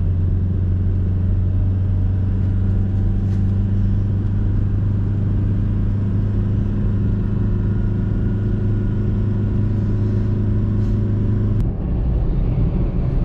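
Car towing a caravan, driving at a steady speed: a steady low drone from the vehicle. The sound changes abruptly near the end.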